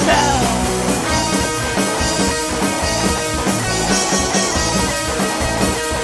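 Punk rock song from a studio recording: a full rock band playing with electric guitar, continuous and loud.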